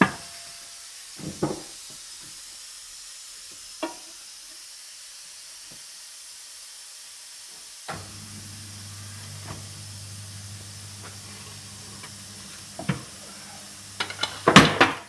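Tyre-changer machine fitting a tyre onto a multi-piece wheel: a few sharp knocks of the steel tyre lever against the rim, then from about halfway the turntable motor hums steadily while the bead is worked on. Near the end comes a loud, brief clatter as the bead goes over the rim.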